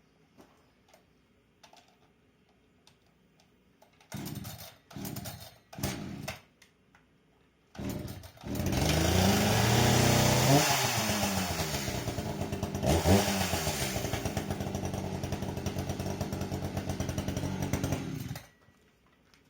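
Echo CS-590 two-stroke chainsaw pull-started with four pulls, catching on the fourth, after a new fuel filter and fuel line. It runs about ten seconds, revved up and down a couple of times, then is shut off suddenly.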